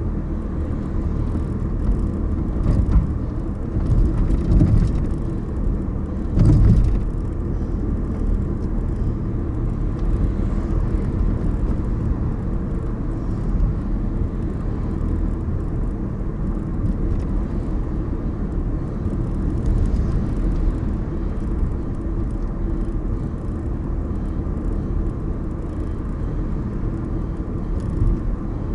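A car driving on city streets: a steady low rumble of road and engine noise, with a few brief louder thumps in the first several seconds.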